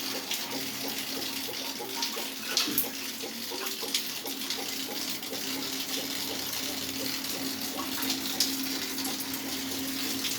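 Water running steadily from a tap, with scattered small ticks and a steady hum underneath.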